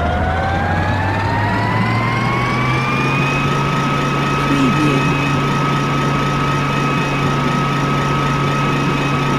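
Sci-fi spaceship engine sound effect spinning up: a whine rises in pitch over the first three seconds, then holds a steady pitch as the engine settles into an idling hum over a low drone.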